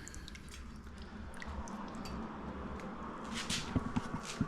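Wet plaster coating squishing and dripping as a freshly dipped foam casting pattern is handled and hung over the bucket, with scattered small wet clicks.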